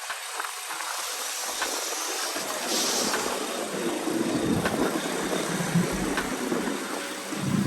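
Mountain bike being ridden: rolling tyre and chain noise with scattered rattles and clicks, under wind rushing over the microphone. A low rumble grows from about two and a half seconds in.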